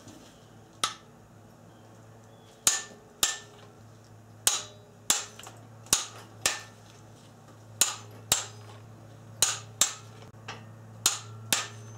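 Click-type torque wrench clicking again and again as it is pulled to 70 foot-pounds on Subaru boxer cylinder-head bolts. It gives about a dozen sharp clicks, mostly in pairs, each one the sign that a bolt has reached the set torque.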